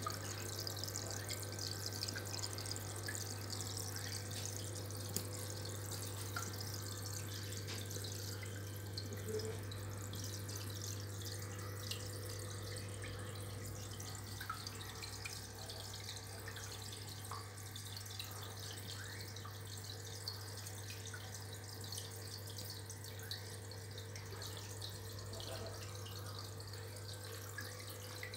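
Aquarium filter running: water trickling and splashing at the surface with many small drips, over a steady low hum.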